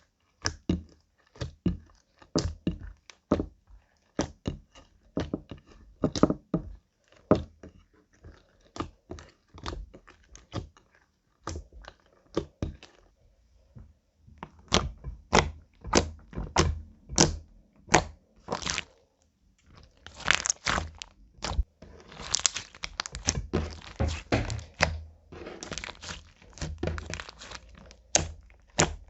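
Slime being pressed, folded and stretched by hand, giving a run of sharp sticky pops and clicks at about two a second. After a short pause the pops become denser and crackly.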